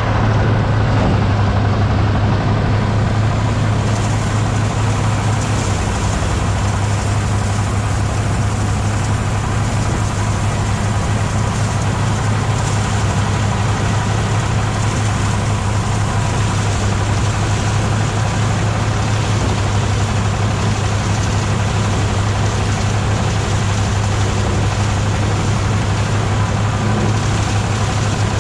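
Mobile rice threshing machine running steadily: a constant low engine drone with a broad rushing noise over it.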